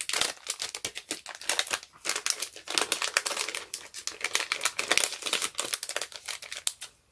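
Packaging crinkling and rustling as it is handled: a dense run of small crackles with a brief pause about two seconds in.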